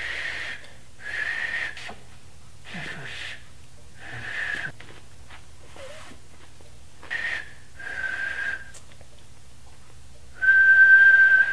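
A man whistling through pursed lips: a string of short, breathy blows, most with a faint whistled note, then near the end one clear, steady whistled note held for about a second, the loudest.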